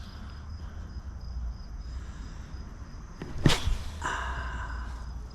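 Night insects trilling steadily as a high, thin continuous tone over a low outdoor rumble. A sharp knock about three and a half seconds in is the loudest sound, followed by a short pitched hum.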